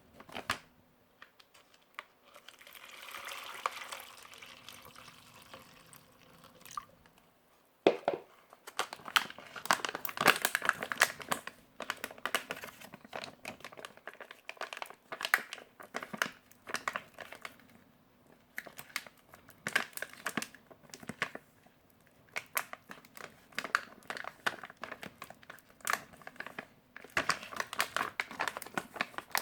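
Plastic and foil ration packaging crinkling and rustling as it is handled and opened, with a softer steady rush for a few seconds near the start.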